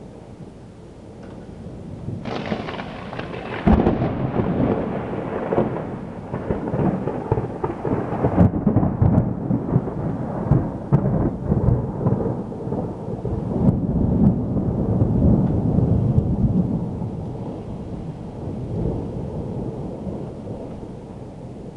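Thunder during a thunderstorm with rain falling. A rumble builds about two seconds in and breaks into a sharp crack, then rolls on with repeated peaks for over ten seconds before fading.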